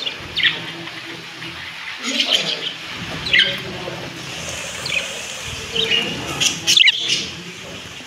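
Budgerigars chirping in short, sharp chirps spaced through the clip, with a quicker run of them near the end.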